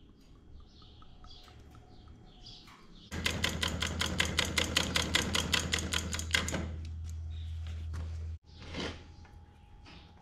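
Handlebar brake lever on a Honda Recon 250 ATV pumped quickly to bleed the hydraulic brakes. It makes a fast run of clicks, about six a second, for three or four seconds, over a low hum that cuts off suddenly.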